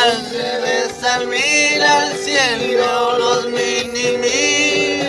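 Corrido music playing, with held melodic notes that slide in pitch.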